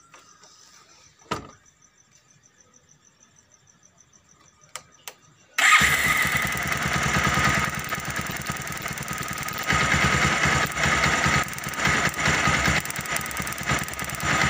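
A short click, then about six seconds in a motorcycle engine starts abruptly and keeps running, its loudness rising and falling, while a spark plug lead is held off its plug to check for a spark.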